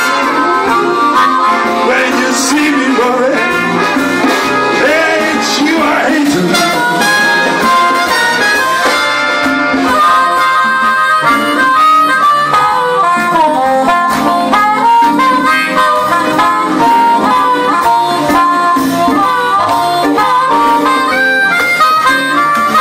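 Big band playing an instrumental blues passage, horns carrying the melody over the rhythm section.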